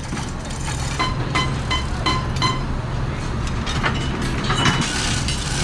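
Construction-site machinery hum with metallic clinks and knocks as steel formwork is loosened from a concrete wall; a quick run of light clinks comes about a second in.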